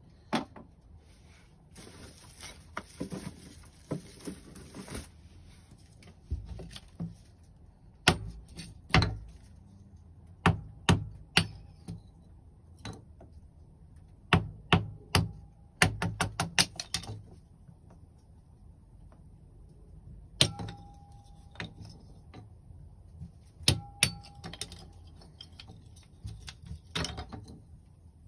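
Kindling fire crackling in a steel drum wood stove: irregular sharp pops, some in quick clusters, a few leaving a short ringing note. There is a stretch of hiss a couple of seconds in.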